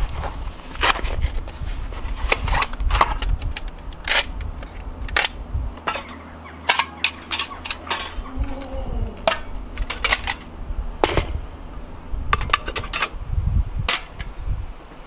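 Metal panels and rods of a Firebox folding stove clinking and clicking against each other in irregular bursts as they are unpacked and slotted together.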